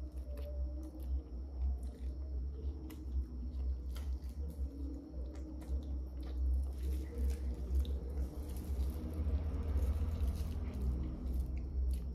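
Close-up eating sounds of someone biting, sucking and chewing a frozen dindin (ice pop in a plastic bag), with scattered sharp clicks and wet mouth noises. A steady low hum runs underneath.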